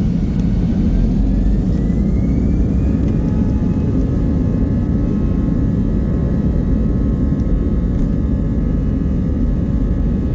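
Airliner engines at full takeoff thrust, heard inside the cabin during the takeoff roll: a heavy, steady rumble with an engine whine that rises over the first few seconds, then holds steady.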